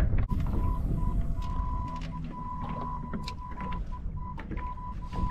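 Spinning reel being cranked to retrieve a lure, a soft whirring with small ticks, over wind buffeting the microphone that eases about a third of a second in. A thin steady high tone keeps breaking off and resuming.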